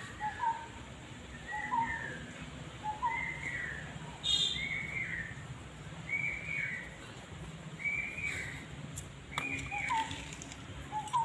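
A bird calling over and over, a short rising note followed by a longer arched, higher note, the pair repeating about every one and a half seconds.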